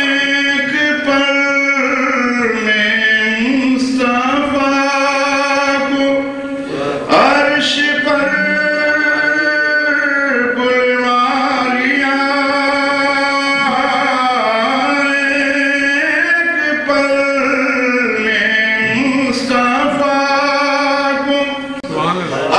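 A man's voice singing verse in a chanting style, holding long, steady notes with only brief pauses for breath.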